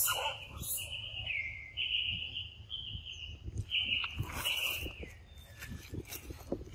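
A high, thin whistled call held for about five seconds, stepping slightly up and down in pitch with short breaks, and ending with a drop in pitch. Soft low knocks and rustles run beneath it.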